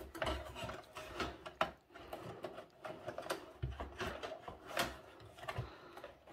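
Irregular clicks, knocks and rattles of a metal computer power supply unit being shifted about inside a desktop PC case, and its wiring connector being worked at on the motherboard.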